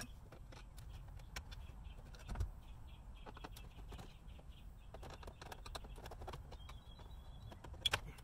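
Faint scattered clicks and taps of a screwdriver working on a plastic instrument-cluster bezel as it is unscrewed and pulled loose, with a sharp click near the end. Birds chirp faintly in the background.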